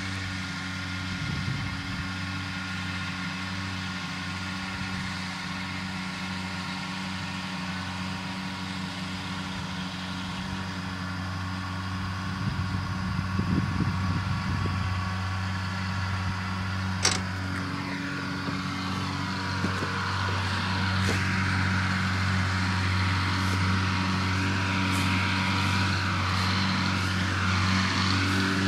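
Tractor engine running steadily under load while mowing hay, heard from inside the cab, with a steady low hum. A single sharp click comes about two-thirds of the way through, after which the engine and machinery sound louder and brighter.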